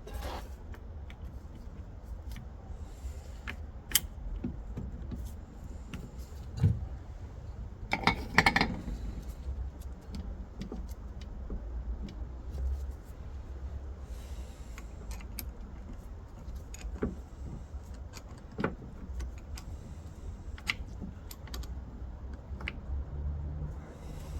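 Metal gearbox parts being handled, clinking and knocking in scattered short clicks, with a louder clatter about eight seconds in, over a low steady hum.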